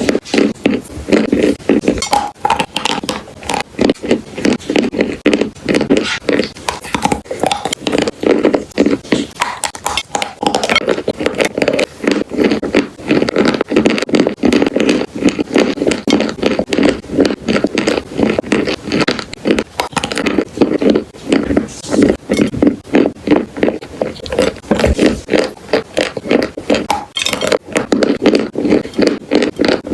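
Close-miked crunching of chalk and clay: a dense run of short, crackling crunches following one another with hardly a pause.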